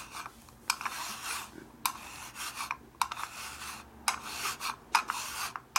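Flat hand file scraping in repeated strokes, about one a second, across a carburetor's aluminium float bowl, metal rasping on metal. The file is taking down a high spot on the bowl's gasket sealing surface so it will seal flat.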